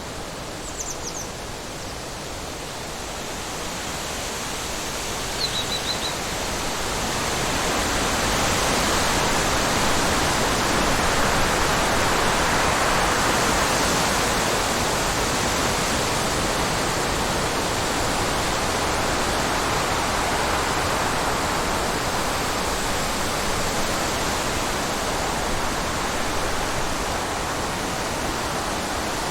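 Wind blowing, a steady rushing noise that swells over the first several seconds and then holds. Two short, faint, high chirps sound about a second in and again about five seconds in.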